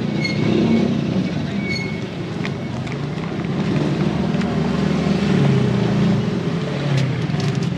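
Street traffic with a motor engine running steadily close by, and a few light clicks.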